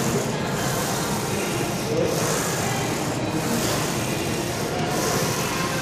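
Smith machine bar sliding up and down its guide rails during bench-press reps: a rasping rub that swells about every second and a half, over steady gym noise.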